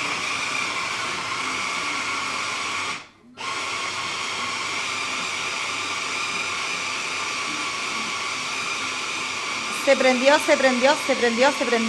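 Hand-held immersion blender running steadily with a high motor whine as it blends a ricotta and egg dough in a small jar. It cuts out briefly about three seconds in and starts again, and a voice comes in over it near the end.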